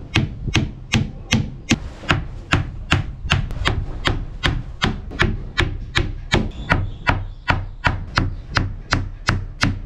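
Hammer driving small nails into a thin wooden edge strip on a plywood lid, a steady run of sharp strikes about three a second.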